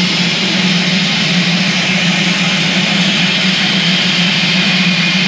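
Steam locomotive letting off steam: a loud, steady hiss over a low, steady hum.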